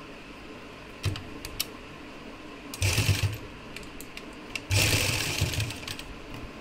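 Black domestic sewing machine stitching in two short runs, a brief one about three seconds in and a longer one near five seconds, after a few light clicks.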